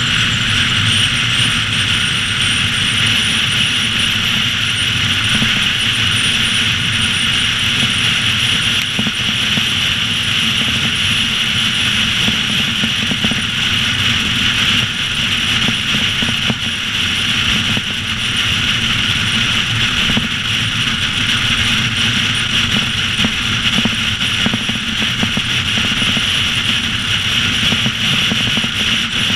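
Steady wind and tyre noise of a car driving at highway speed, picked up by a camera mounted on the outside of the car's roof.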